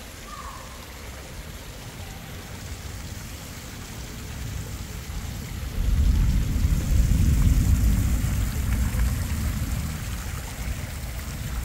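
Fountain water splashing from the elephants' trunks into the stone basin, under a low rumble that swells about halfway through and eases near the end.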